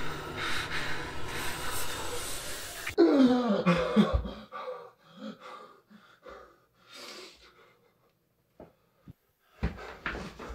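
A dense noisy wash cuts off abruptly about three seconds in. A man then lets out a groan that falls in pitch and breathes heavily, with a couple of small clicks and some knocking near the end.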